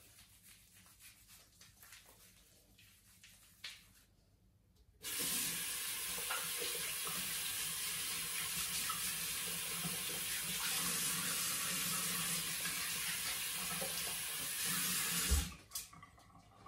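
A bathroom tap turned on about five seconds in, water running steadily into the sink for about ten seconds, then turned off with a short knock. Before it, faint rustling of hands rubbing shaving foam into the scalp.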